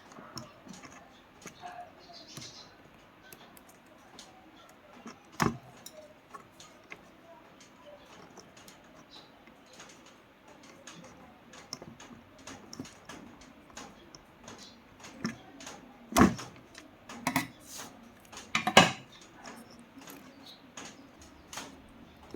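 Scattered light clicks and taps of small hard objects being handled, with a few louder knocks about five seconds in and again between about 16 and 19 seconds.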